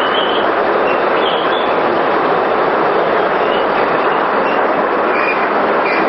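Steady, loud rushing noise of a running micro-hydro turbine, with water pouring down a large inclined pipe through the machine. It is running under load, lighting a bank of bulbs.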